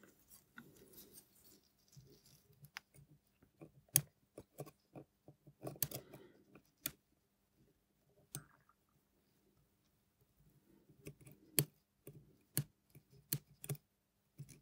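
Faint, scattered small clicks and taps of tweezers and a pegwood stick on the parts of a watch movement held in a movement holder, as the setting spring is worked back out; a few louder ticks stand out, with a quiet stretch in the middle.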